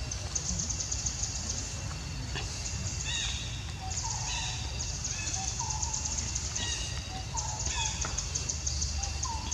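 Forest insects trilling in high-pitched, rapidly pulsed surges that start and stop every second or so, with short falling chirps over them and a steady low rumble beneath.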